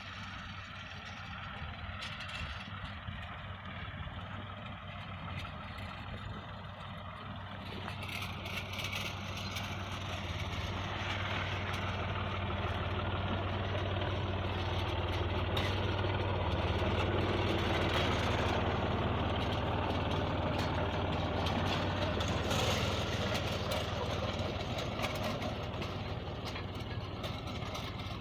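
New Holland farm tractor's diesel engine running steadily, growing louder from about a third of the way in, loudest past the middle and easing slightly near the end.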